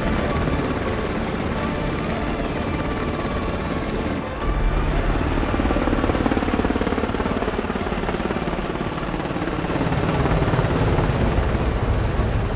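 Helicopter rotors and engine running close overhead in a steady, pulsing beat. The sound changes abruptly about four seconds in, and through the middle its pitch falls as the helicopter passes.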